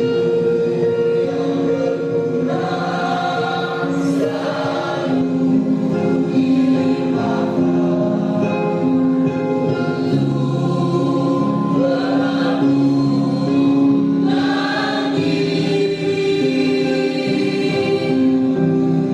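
A school choir of junior-high students singing together in parts, with long held notes that change pitch in steps.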